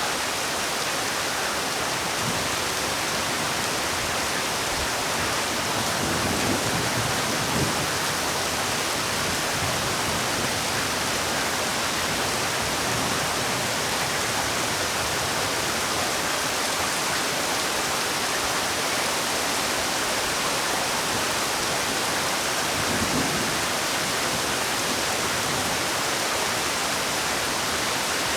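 Heavy rain falling, a steady dense hiss with no separate drops standing out, with a couple of brief low swells partway through.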